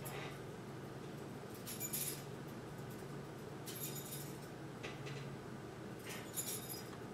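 Faint steady low hum with light glassy clinks about every two seconds.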